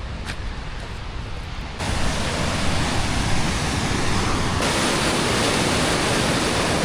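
A steady, loud rushing noise with strong low rumble. It gets louder abruptly about two seconds in, shifts again partway through, then cuts off suddenly.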